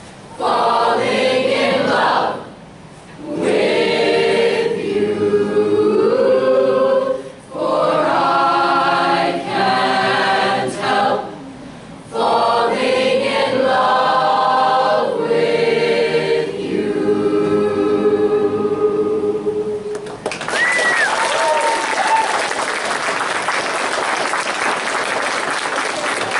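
A teenage choir singing together in phrases with short breaks. About twenty seconds in the singing ends and applause and cheering take over, with a few whoops.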